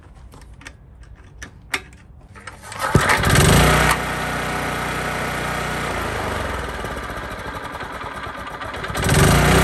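Iseki mini tiller's small petrol engine starting up about three seconds in, with a brief surge of revs as it catches, then running steadily and revving up again near the end. It now runs well, with a new air cleaner fitted to cure its poor revving and lack of power.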